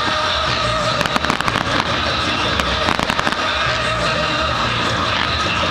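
Fireworks crackling in rapid clusters of sharp pops, about a second in and again around three seconds in, with music playing underneath.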